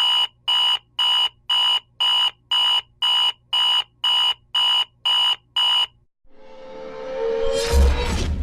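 Digital alarm clock beeping: twelve short, identical high-pitched beeps at about two a second, which stop about six seconds in. A rising swell of sound then builds toward the end.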